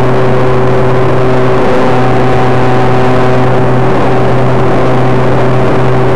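Motor and propeller of a radio-controlled T-28 Trojan model airplane, heard loud and close from a camera on the wing, running at a steady pitch in flight.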